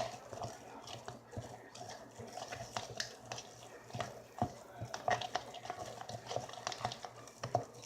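Sticky white-glue and detergent slime being worked and mixed in a bowl, giving irregular small sticky clicks and taps. The mixture is still too sticky, short of detergent.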